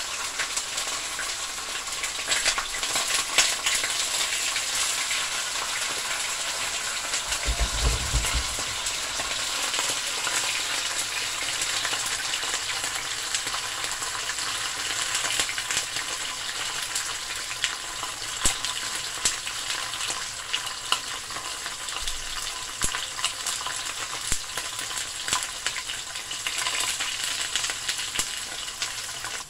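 Whole perch frying in hot oil in a stainless steel pan: a steady sizzle with scattered crackling pops. A dull low bump about eight seconds in.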